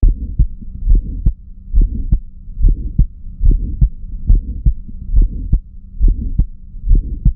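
Recorded heart auscultation: a heart beating steadily a little over once a second, each beat a pair of heart sounds with a systolic murmur filling the gap between them. A sharp click at the first sound is read by the cardiologist as an aortic or pulmonary ejection click from a stenotic, dysplastic valve, not a split first heart sound.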